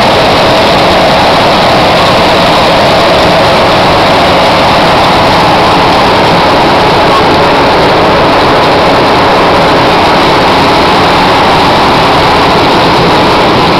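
Wirtgen W 200 asphalt cold milling machine working up close: its diesel engine and milling drum make a loud, steady mechanical noise without a break.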